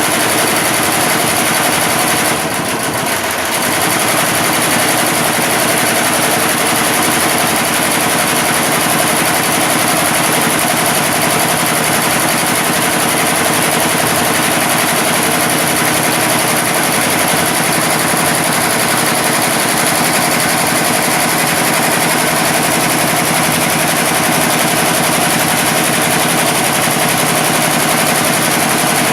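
Computerized embroidery machine running steadily as it stitches, with a brief quieter moment about two and a half seconds in.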